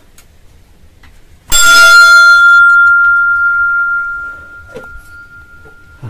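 A hanging temple bell struck once about a second and a half in, ringing on in one clear tone that slowly fades away.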